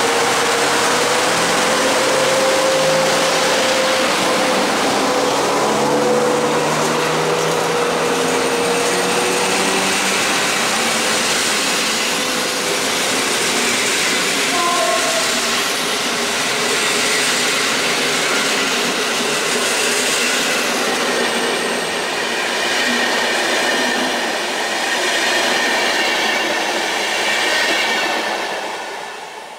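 Intercity train of passenger coaches behind an EP09 electric locomotive rolling past at speed, with a steady rush and rumble of wheels on rail. A thin steady whine sounds under it for about the first ten seconds, then fades.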